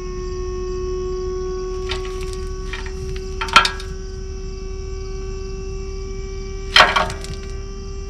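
A dump trailer's hydraulic pump runs with a steady whine as the loaded bed tilts up. A few sharp knocks come over it, the loudest about three and a half and seven seconds in.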